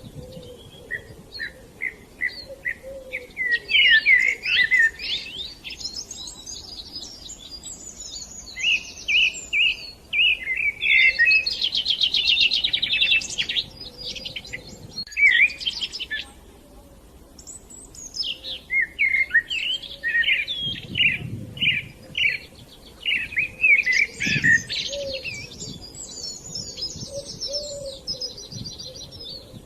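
Several songbirds chirping and trilling in bouts of rapid, high notes, with short lulls between the bouts.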